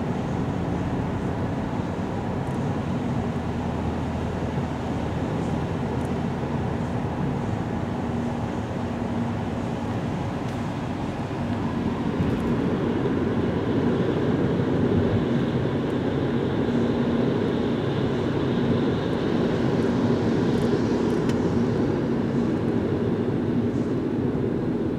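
Steady road noise inside a moving car on a wet highway: tyre hiss and engine hum. It grows louder about halfway through.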